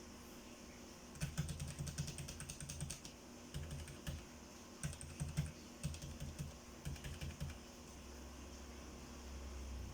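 Mechanical keyboard with Outemu switches being typed on: several quick runs of keystroke clicks with short pauses between them, stopping about three-quarters of the way through.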